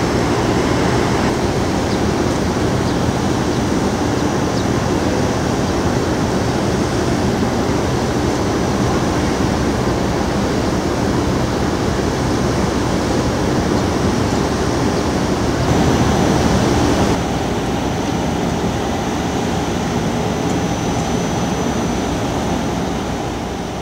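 Steady port background noise: a continuous low rumble and hiss with a faint machinery hum under it, dropping slightly in level about two-thirds of the way through.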